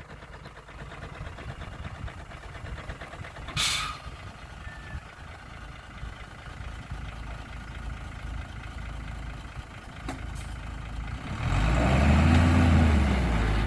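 Heavy diesel engine of earthmoving machinery running steadily at low speed, with a short hiss of air about three and a half seconds in. Near the end the engine revs up loudly and falls back.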